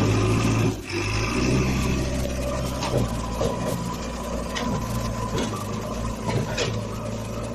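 JCB backhoe loader's diesel engine running steadily as the loader pushes its front bucket through nursery plant beds, with a few sharp clicks and knocks over the engine sound.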